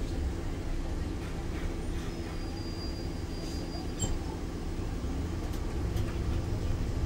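Cabin sound of a MAN Lion's City articulated bus with a biogas engine, driving slowly: a steady low engine hum mixed with road noise.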